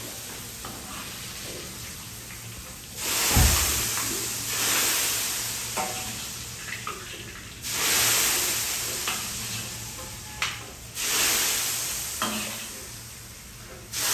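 Food frying in hot oil in a kadhai: the sizzle flares up loudly three times and each time dies away over a couple of seconds, with a dull knock at the first flare and small utensil clicks in between.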